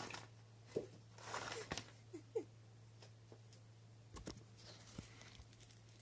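A cat giving several short, squeaky mews, about four in the first two and a half seconds while begging for a treat, with some soft rustling and a few light knocks after.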